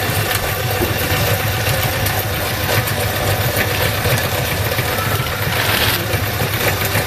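Motorised meat-grinding machine running steadily with a constant low hum, used here for grinding fly maggots.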